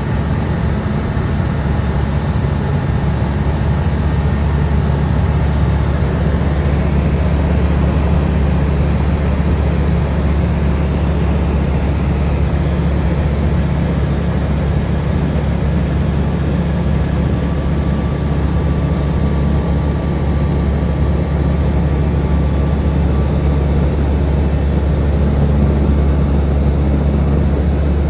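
Ultralight aircraft's piston engine and propeller running steadily in flight, heard from inside the cockpit as a loud, even drone with a low hum under a wash of rushing noise.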